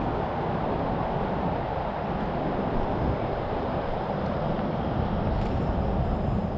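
Steady drone of distant freeway traffic, a continuous rumbling hiss without a break.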